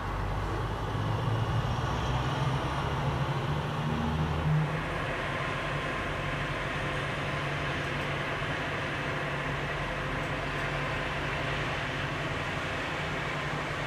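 Distant thunder rumbling low, swelling and fading over about the first four or five seconds, then an even rushing noise.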